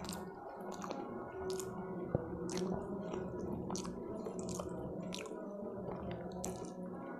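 Close-up wet squishing and smacking of eating by hand: fingers working masala rice on a steel plate, and chewing, in irregular short clicks a few times a second over a low steady hum.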